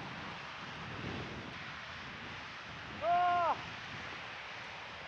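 A steady rushing noise of snowstorm wind. About three seconds in comes a single short hoot, about half a second long, rising slightly and then falling.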